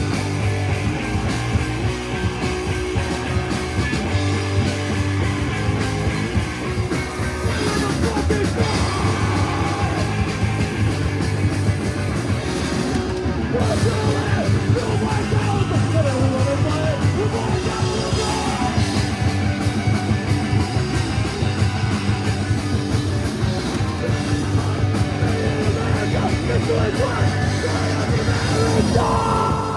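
Live rock band playing with guitar, drums and a singer.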